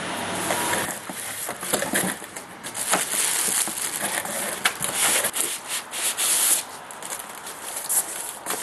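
Cardboard and plastic packaging being handled: plastic wrap crinkling and cardboard rubbing and scraping, with scattered small knocks and crackles, loudest in the middle.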